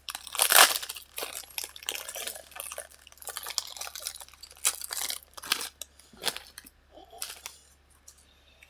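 Foil Pokémon card booster pack crinkling and rustling in the hands as it is opened and the cards are handled, in irregular bursts. The loudest crinkle comes about half a second in, and it thins out after about six seconds.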